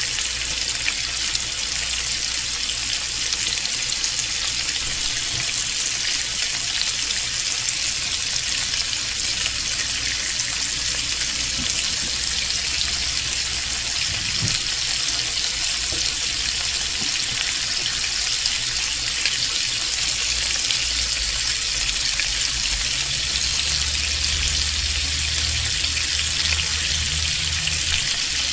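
Bacon frying in a pan, sizzling steadily: a dense, even hiss of fine pops that sounds much like rain or white noise.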